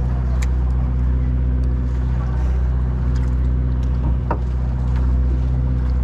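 Boat engine running steadily with a deep, even hum. A couple of light clicks sound over it, about half a second in and again past the fourth second.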